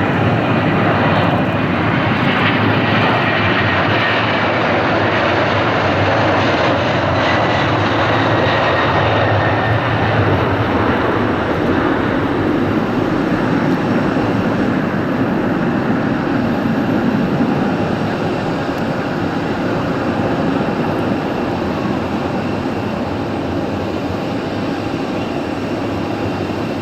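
Boeing 767-300 twin jet engines at takeoff thrust: a loud, steady rumble with a faint high whine, slowly fading over the second half.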